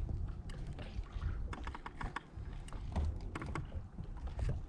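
Irregular light clicks and taps, some in quick clusters, over a steady low rumble of wind.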